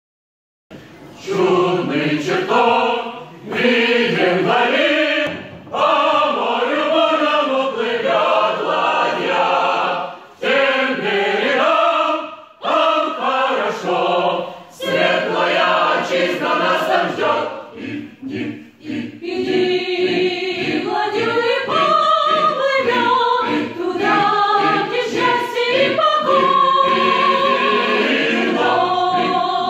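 Mixed choir of men and women singing a hymn unaccompanied, phrase by phrase with brief pauses between the lines.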